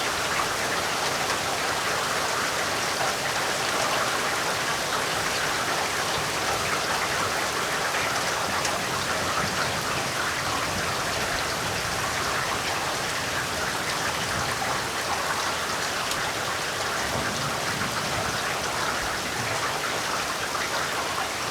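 Heavy rain falling steadily, a dense even patter of drops on surfaces.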